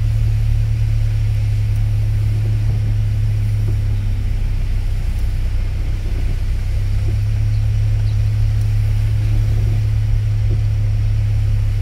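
Car driving, heard from inside the cabin: a steady low engine and road rumble with a faint tyre hiss.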